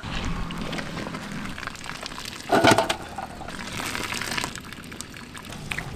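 Boiled beef being lifted out of its spiced broth in a large cooking pot: liquid sloshing and dripping, with one louder knock and a short ring about two and a half seconds in.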